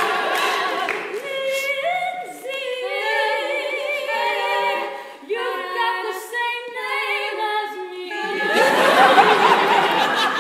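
Three women singing close harmony a cappella in barbershop style, holding chords with vibrato. A denser, noisier spread of mixed voices comes in at the start and again from about eight and a half seconds in.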